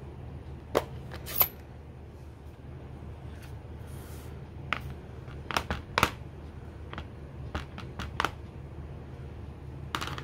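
Scattered light plastic clicks and taps as a Stampin' Up! ink pad case is handled and dabbed onto a clear stamp on an acrylic block, about eight in all, over a steady low hum.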